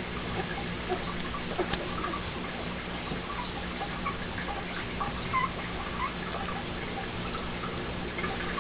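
Short, soft high squeaks from a puppy and scattered light ticks over a steady electrical hum.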